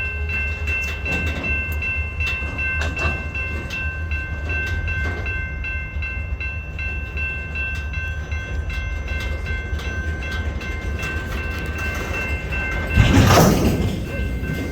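Freight train being worked slowly: a steady low diesel rumble with scattered clicks and knocks from the cars, over a steady high-pitched squeal. About thirteen seconds in, a loud rushing burst lasts about a second.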